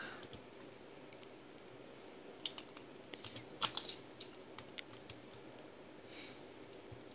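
Light clicks and taps of a Wing Pegasus 90WF Beyblade's parts being fitted together by hand: a scattered run of small clicks starting about two and a half seconds in, the loudest near the middle, dying away before five seconds.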